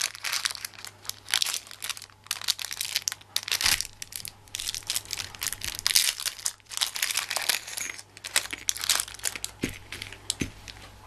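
Plastic blister pack crinkling and crackling in irregular bursts as it is handled and opened by hand.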